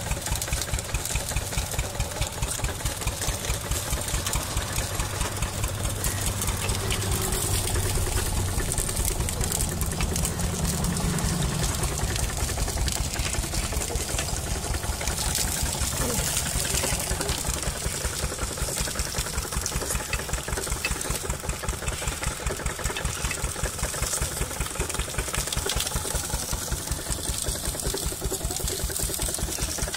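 Engine-driven sugarcane crusher running steadily, the engine going with an even, rapid knock that does not change in speed.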